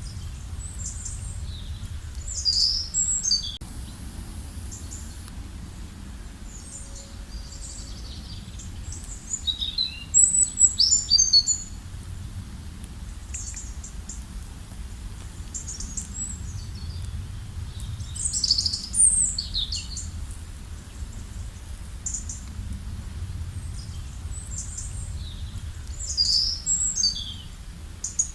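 Small birds chirping, with a louder burst of song about every eight seconds, over a steady low rumble.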